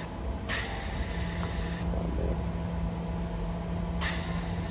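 MIG welder laying tack welds on the thin old sheet steel of a truck tailgate. A burst of hissing arc starts about half a second in and lasts just over a second, and another starts near the end, over a steady low hum.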